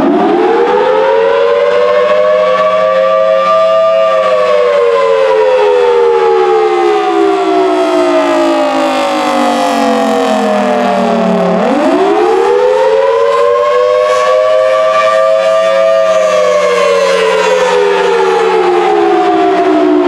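Federal Signal Thunderbolt 1000T siren sounding the attack signal, a wavering wail. Its tone climbs quickly to a peak about four seconds in, sinks slowly, then climbs again about eleven seconds in and starts falling once more.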